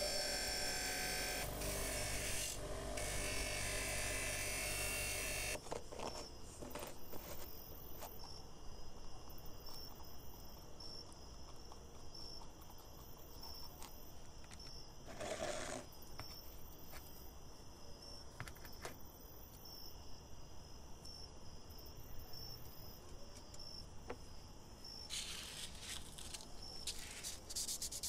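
Bench grinder with an abrasive wheel running while a metal lever arm is pressed against it, for about the first five seconds. Then the grinder falls silent, leaving a faint hiss with faint high chirps repeating about once a second and a brief rustle midway. Near the end, rubbing of a small metal part by hand, like sanding, begins.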